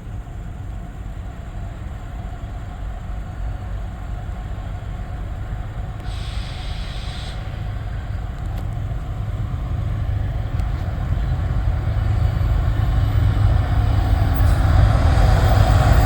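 Approaching CN freight train's diesel locomotives, a low rumble growing steadily louder, with a brief hiss about six seconds in.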